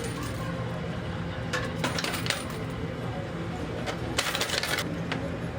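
Quarters clinking and clattering in a coin pusher machine over its steady hum, with two bursts of rapid clinks about one and a half seconds and four seconds in.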